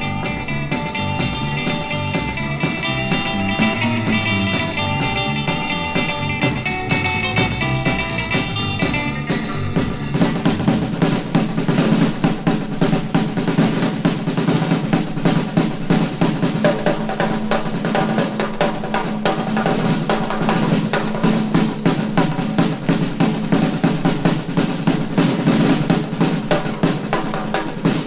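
Instrumental band recording: the full band plays a melody, then about ten seconds in a drum-kit solo takes over, with rapid snare strokes and bass drum.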